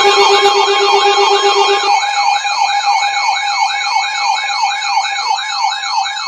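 Electronic alert siren: a fast warbling tone sweeping up and down about three times a second over steady high tones. A low pulsing beep underneath stops about two seconds in.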